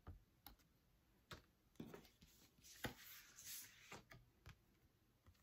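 Faint scattered clicks and taps, with a soft papery rustle in the middle: stiff picture cards being handled and swapped.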